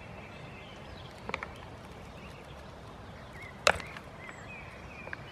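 Two goats butting heads: a couple of light knocks just over a second in, then one loud sharp crack of heads clashing about three and a half seconds in.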